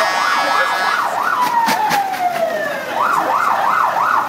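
Electronic siren sounding loudly, switching from a fast up-and-down yelp to a long falling wail about a second and a half in, then back to the fast yelp, which stops abruptly at the end. A few sharp clicks sound partway through.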